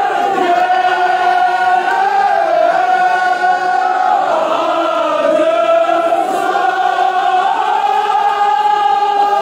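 A group of voices chanting a Kashmiri marsiya, a mourning elegy, in unison, on long held notes that dip and rise slowly in pitch.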